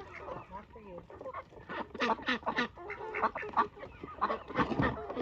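A flock of homestead poultry calling in a run of short, overlapping calls, busiest about two seconds in and again near the end.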